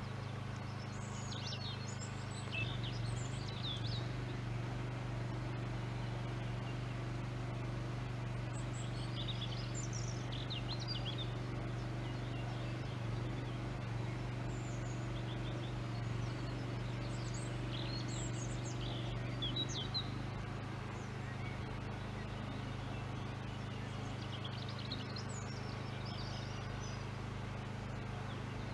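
Small birds chirping and singing in short high phrases that come in groups every several seconds, over a steady low hum.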